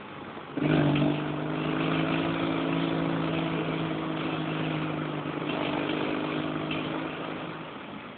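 Saiting 650 buggy's engine heard from on board: about half a second in the throttle opens sharply and the engine pulls at a steady pitch for several seconds, then eases off near the end.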